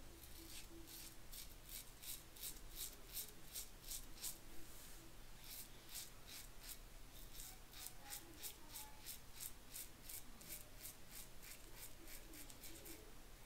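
Mulcuto slant-bar safety razor scraping through lathered stubble in short, quick strokes, about three to four a second, with a brief pause about five seconds in.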